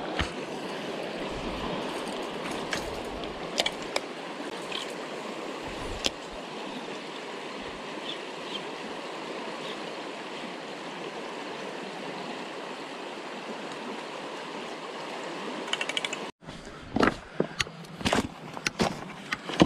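Steady rushing of river water running over a rock bar, with a few faint clicks. Near the end, after an abrupt cut, there are irregular crunching footsteps on loose river stones.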